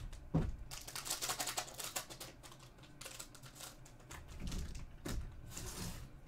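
Foil trading-card packs crinkling and clicking as they are handled and sorted on a tabletop, with a few soft knocks against the table.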